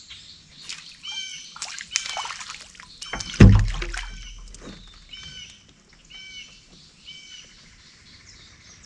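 A bird calling over and over, a short call about every second. About three and a half seconds in come splashing and a loud low thump as a hooked bluegill is swung up out of the water to the boat.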